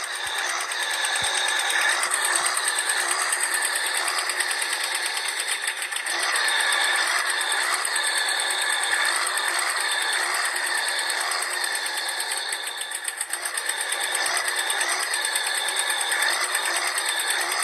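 Small geared electric motors of toy model tractors whirring and buzzing steadily under load as they strain to pull a stuck toy truck, their pitch wavering up and down as the load changes.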